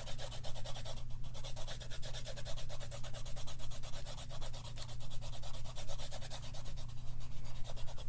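Fast back-and-forth colouring strokes scratching on paper, several strokes a second in a steady rhythm, with a brief break about a second in.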